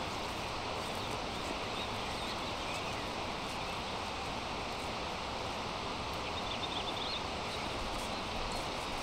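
Steady outdoor ambience of rustling noise, with a few faint high bird chirps about three seconds in and again near seven seconds.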